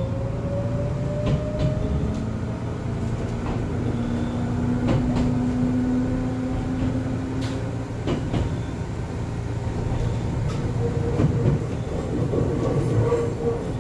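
Gakunan Railway ex-Keio 3000 series electric train running: a steady rumble with clicks of the wheels over the rail joints. A motor whine rises in pitch over the first few seconds as the train picks up speed.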